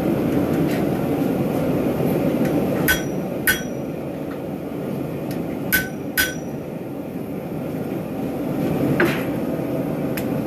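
Hammer blows ringing on a Hay Budden anvil: two pairs of sharp strikes about half a second apart, then a single strike near the end. Under them runs a steady rushing noise.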